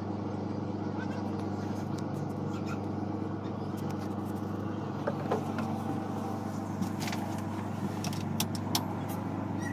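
A boat's inboard engine running steadily, a low even drone heard from inside the wooden wheelhouse, with a few light clicks and knocks in the second half.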